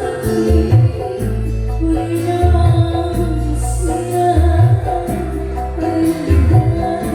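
Music played through a sound system run from an analog mixing desk: heavy sustained bass, a wavering melody line, and tambourine-like jingles, with a cymbal crash about three and a half seconds in.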